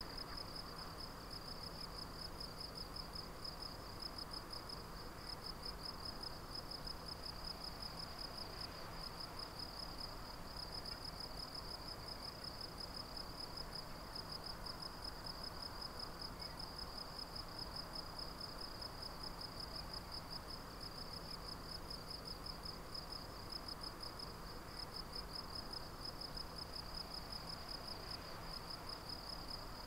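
An insect trilling: a steady, rapid, high-pitched pulsing chirr that pauses briefly every few seconds.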